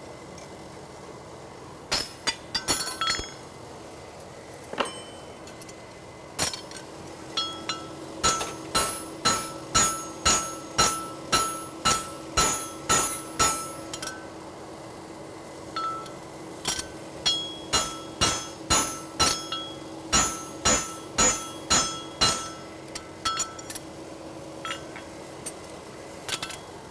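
Hand hammer driving a pritchel through the nail holes of a hot steel draft horseshoe on the anvil. After a few scattered strikes come two runs of steady blows, about two a second, each with a bright metallic ring. A steady low hum lies underneath.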